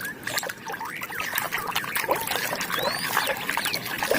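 Water trickling and splashing as a muddy plastic toy is washed, with scattered clicks and short squeaky chirps.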